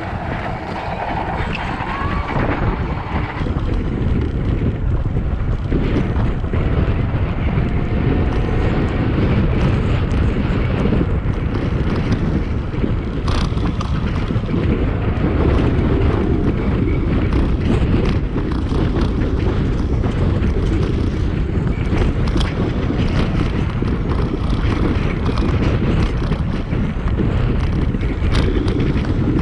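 Wind rushing over the microphone of a helmet-mounted camera on a moving electric BMX bike: a steady, loud low rumble that grows louder over the first few seconds and then holds.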